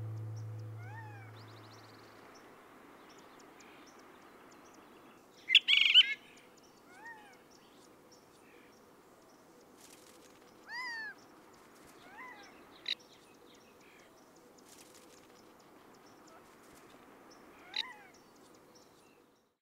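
Short chirping animal calls every few seconds over faint outdoor ambience, with one louder, harsher call about six seconds in. A low musical note fades out in the first two seconds.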